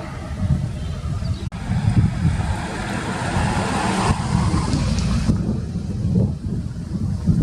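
Airbus Helicopters AS365 Dauphin twin-turbine helicopter taking off, heard as a heavy, uneven low rumble of rotor and engines with wind buffeting the microphone. A higher hiss over it drops away about five seconds in.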